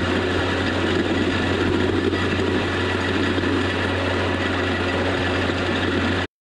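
Tractor engine running at a steady speed with an even hum, cutting off suddenly near the end.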